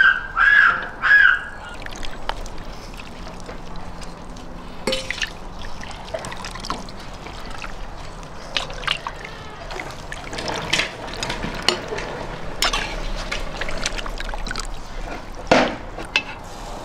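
Slotted metal skimmer ladling meat and vegetable stew out of a cauldron onto a ceramic platter: broth dribbling and splashing, with scattered clinks and knocks of the skimmer against the pot and dish, one louder knock near the end. A few short high squeaks come in the first second or so.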